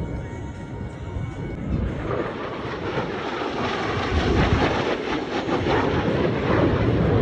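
Blue Angels F/A-18 Super Hornet jet flying past overhead, its engines a dense rushing roar that grows louder toward the end.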